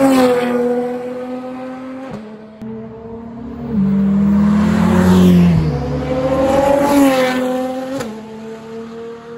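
Ferrari FXX K track cars and their V12 engines running hard as they pass at speed. The engine note falls in pitch as each car goes by, and the sound changes abruptly a few times.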